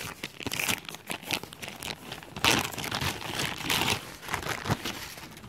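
Clear plastic packaging bag crinkling as it is pulled open by hand, a dense run of irregular crackles with louder bursts about two and a half and four seconds in.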